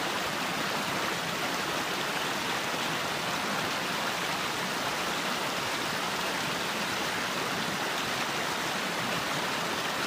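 Small rocky mountain creek running and splashing over boulders in a steady, even rush.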